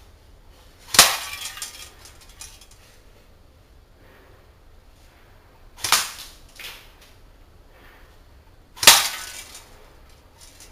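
Three single airsoft shots, each BB striking a hanging target with a sharp crack and a short rattle, about five and then three seconds apart.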